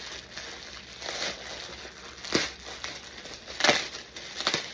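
Packaging crinkling and rustling as it is handled and opened, with a few sharper crackles about halfway through and near the end.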